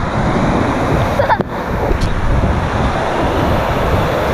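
Loud, steady rushing of water with wind buffeting the microphone, and a brief cry about a second and a half in.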